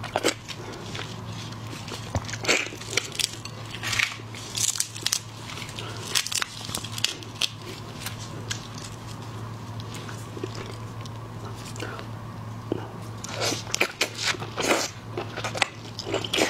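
Close-miked eating of whole red prawns: irregular wet slurps, smacks and bites as the meat is sucked from the heads and shells, then chewing. A faint steady low hum runs underneath.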